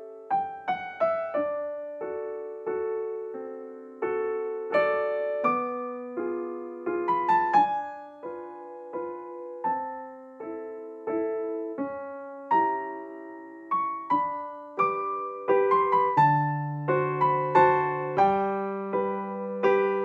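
Background piano music: a gentle melody of single notes over chords, each note struck and fading.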